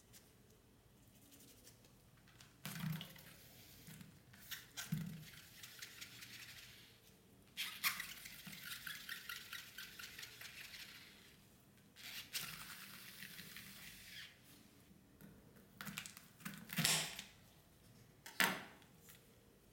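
A bitter gourd is handled in gloved hands and moved about on a stainless steel pan, giving soft rustling and scraping in several stretches. Near the end come two crisp knife cuts through the gourd onto the pan.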